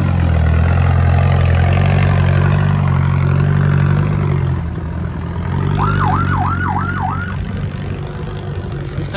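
Land Rover Defender's engine working under load as it crawls up a rutted, rocky off-road lane, easing off a little about halfway through as the truck pulls away. About six seconds in comes a quick run of five rising-and-falling whistles.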